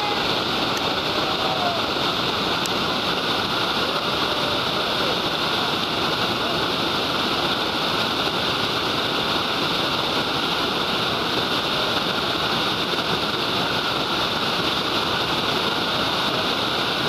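Whitewater rapids rushing steadily over boulders, a constant loud river roar.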